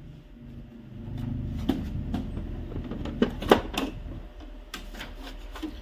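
Epson L3210 inkjet printer running its print-head cleaning cycle: a low motor whir for the first few seconds, with a string of sharp clicks from the mechanism.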